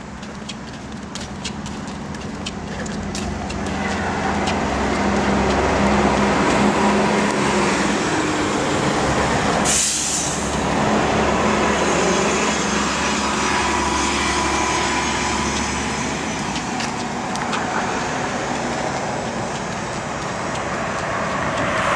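A heavy road vehicle passes close by: its engine grows louder over several seconds, holds, then eases off, with a short sharp hiss of air about ten seconds in.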